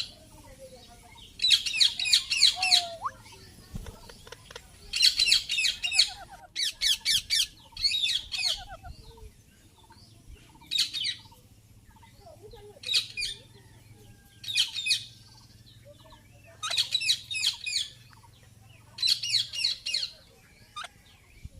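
Indian ringneck parrot squawking in about nine short bouts of rapid, high-pitched repeated calls, each bout about a second long, with pauses of a second or two between them.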